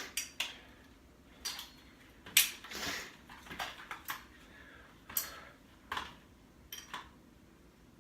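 A man breathing heavily and unevenly, out of breath after a hard bike ride: a string of short, sharp breaths and gasps at irregular intervals.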